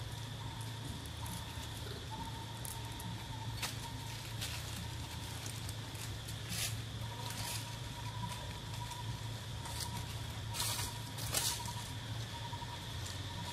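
Outdoor ambience: scattered short rustles and crackles in dry leaf litter, typical of macaques moving about on the ground, with two louder crackles close together near the end. Under them run a steady low hum and a thin steady high tone.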